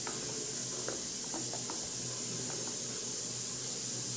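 Steady hiss with a low hum, and a few faint clicks in the first two seconds from a spoon stirring gram-flour batter in a steel bowl.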